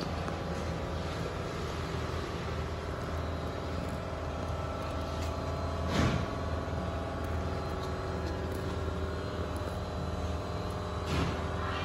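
A steady mechanical hum, a low drone with several steady tones over it, like an engine or machine running, with a short knock about six seconds in and another near the end.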